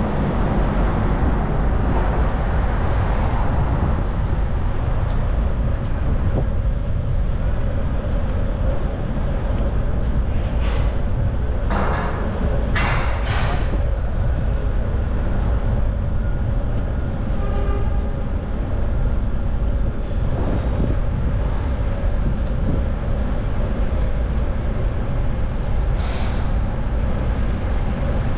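City traffic noise with a steady low rumble of wind on the microphone of a moving bicycle. Several short high hisses or squeals come in a cluster about a third of the way through, and one more near the end.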